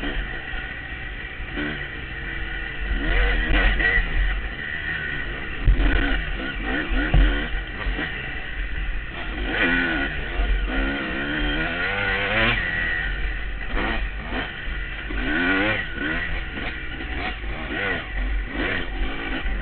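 2003 Honda CR250R two-stroke dirt bike engine revving up and down over and over as it is ridden along a rough trail, its pitch rising and falling with the throttle. Low wind rumble on the microphone and a couple of sharp knocks from bumps about six and seven seconds in.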